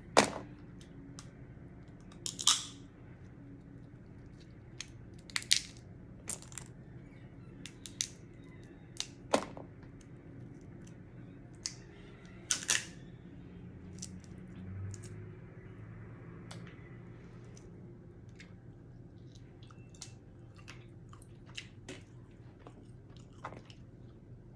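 Blue crab claw shell being cracked and picked apart during eating: a series of sharp cracks and snaps, the loudest near the start and about 2.5, 5.5, 9 and 12.5 seconds in, with quieter clicks of shell pieces and some chewing between them.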